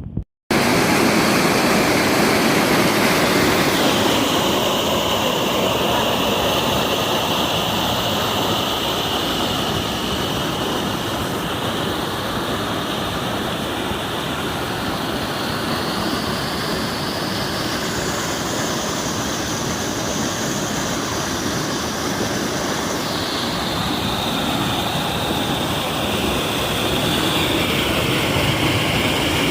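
Loud, steady rush of water, starting abruptly about half a second in.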